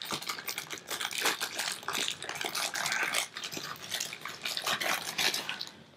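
Continuous rustling and light scratching of a camera neck strap and its packaging being handled and pulled out, a quick string of small crinkles and scrapes that dies down near the end.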